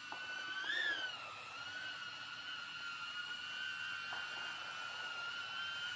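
Small quadcopter's four brushless motors and 3-inch propellers whining in a hover. The pitch rises and falls briefly about a second in, then holds steady while the flight controller keeps the drone at a set altitude in altitude-hold mode.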